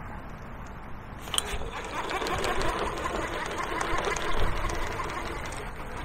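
Fishing reel being wound in: a sharp click just over a second in, then a steady whirring with fast clicking from the reel's gears that fades near the end.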